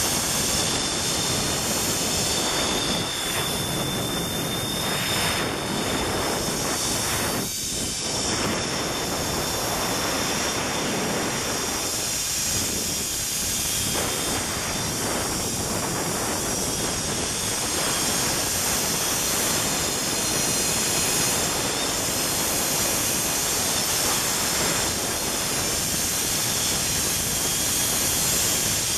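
Steady rushing hiss of a zip-line ride: wind over the microphone and the trolley's pulleys running along the steel cable.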